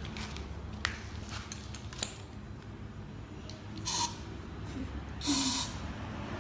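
Aerosol spray-paint can sprayed in two short hissing bursts, a brief one about four seconds in and a louder half-second one just after five seconds, with a few light clicks before them.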